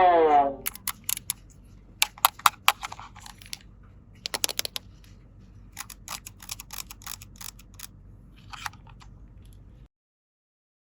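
Light clicks and taps of small plastic toy pieces being handled, coming in quick clusters about two and four and a half seconds in and more sparsely after; the sound stops dead near the end.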